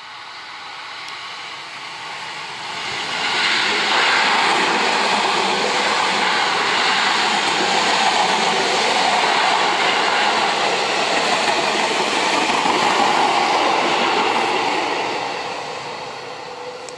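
Two Seibu 6000 series electric commuter trains running past each other on double track. The rail noise builds about three seconds in, holds loud and steady for about ten seconds as the cars go by, then fades.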